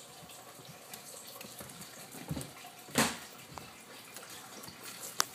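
American Pit Bull Terrier puppy playing with a plush toy on a hardwood floor: soft scuffling and rustling of fabric and paws, with a louder burst of rustling about three seconds in and a sharp click near the end.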